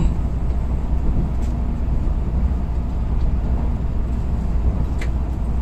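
Steady low rumble of a Tokaido Shinkansen train running, heard from inside the passenger car, with a couple of faint ticks.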